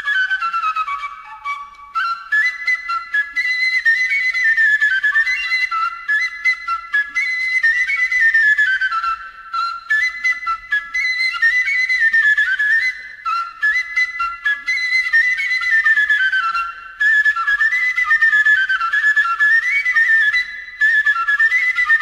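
Background instrumental music: a high flute-like melody of quick running notes, falling in repeated runs, with a few brief pauses.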